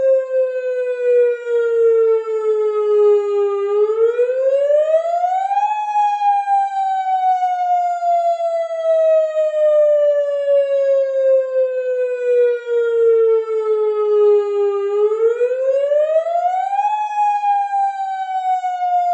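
Tsunami warning siren wailing: a single tone that rises quickly over about two seconds and then slowly sinks for about nine. The rise and fall happens twice.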